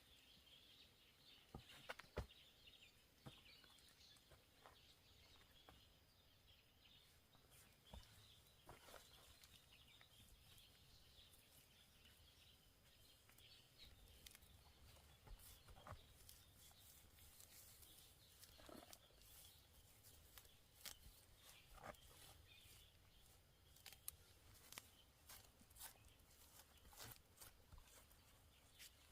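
Near silence: faint outdoor ambience with a thin, high chirping that is clearest in the first several seconds, and scattered small clicks and taps.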